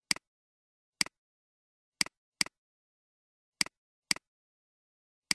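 Seven computer mouse clicks, each a quick press-and-release double tick, at uneven intervals of about a second, two of them coming in closer pairs.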